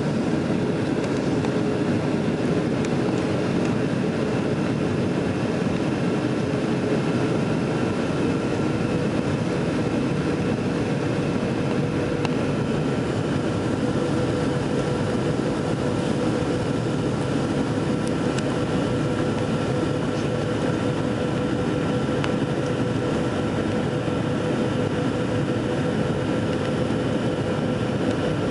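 Airliner cabin noise on final approach, heard from a window seat beside the engine: a steady jet engine drone with rushing air. A humming engine tone in it steps slightly higher in pitch about eight or nine seconds in.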